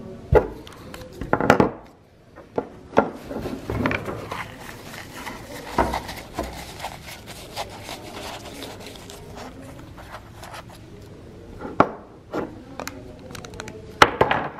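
Half-inch PVC pipes and fittings handled and pushed together on a wooden tabletop: a string of sharp knocks with rubbing and scraping in between.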